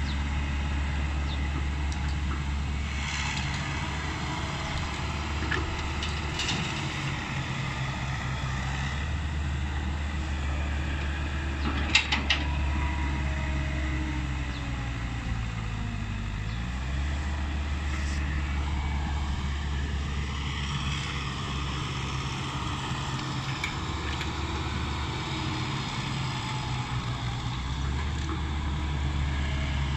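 Komatsu hydraulic excavator's diesel engine running steadily, its pitch sagging and then recovering about halfway through as it comes under load. A pair of sharp knocks sounds a little before that.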